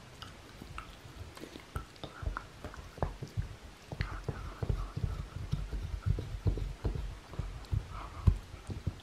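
Shiba Inu gnawing a wooden kamaboko board: irregular crunching bites and knocks of teeth on wood, sparse at first and coming thick and fast from about four seconds in, with the hardest bite near the end.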